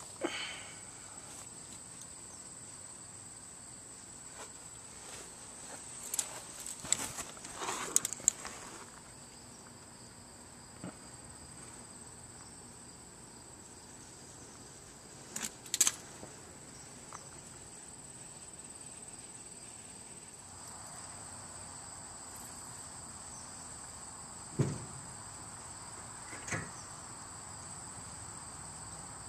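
Crickets trilling steadily at a high pitch, with a few scattered knocks and clicks now and then.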